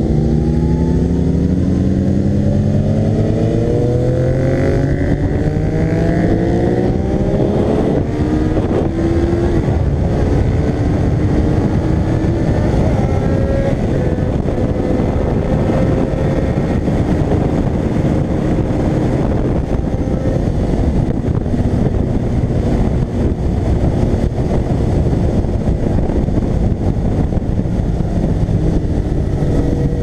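Motorcycle engine under hard acceleration, its pitch climbing steadily for the first eight seconds or so, then a shift and a steadier high-speed drone under heavy wind rush on the microphone.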